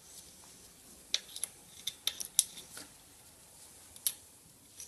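Light metallic clicks and taps of a tool on the steel hub adapter plate of a ProCut on-car brake lathe as its runout adjustment screws are backed off: a quick irregular run of clicks, then one more near the end.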